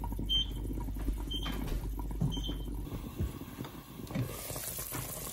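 Chicken opor simmering in a lidded pot, with a short high electronic beep about once a second over the first two and a half seconds and a low hum that stops about three seconds in. Near the end a soft hiss comes as the glass lid is taken hold of.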